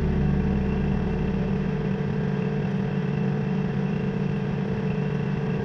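Kubota L2501 compact tractor's three-cylinder diesel engine running steadily as it pushes snow with a front snow pusher.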